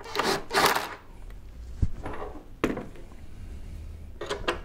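A hand wrench tightening 3/8-inch lag screws that fix a wooden mounting block to the bench leg set: two rattling clatters in the first second, then scattered metallic clicks and knocks.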